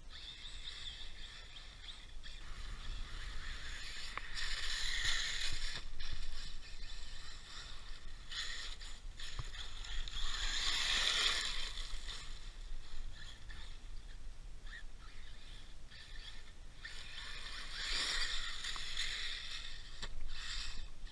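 Brushless-powered 1/10 RC truck (ARRMA Typhon 6S BLX based) running on gravel: its motor whine and tyres spraying gravel swell up three times as it passes, loudest about ten seconds in.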